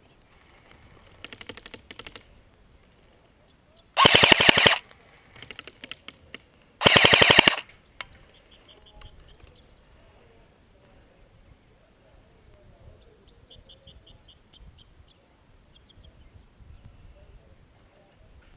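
Airsoft rifle firing two short full-auto bursts, one about four seconds in and one about seven seconds in, each a rapid string of sharp clicks. Fainter bursts of fire come before and between them.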